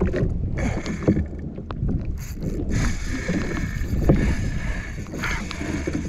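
Water splashing and knocking against a fishing kayak's hull, an uneven jumble of small splashes and knocks.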